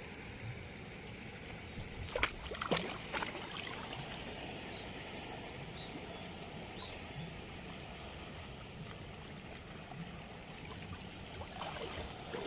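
River water running steadily, with a few short, sharp sounds about two to three seconds in.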